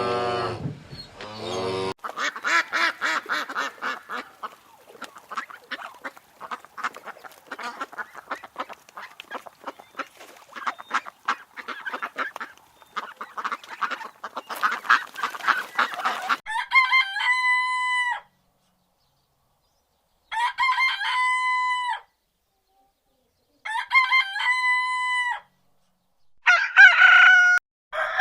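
The tail of a cow's moo, then chickens clucking in a dense, busy chatter for about fourteen seconds, then a rooster crowing four times with short gaps between the crows.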